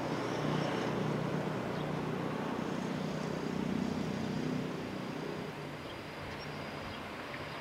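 Steady low engine hum mixed with open-air background noise. It eases off slightly about four and a half seconds in.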